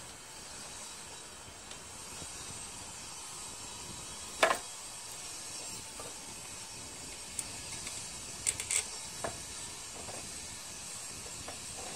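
A few sharp metal clicks and clinks of pliers and small parts handled at a Tecumseh mower engine's carburetor linkage, over a steady background hiss. The loudest clink comes about four seconds in, and a cluster of lighter clicks follows around eight to nine seconds.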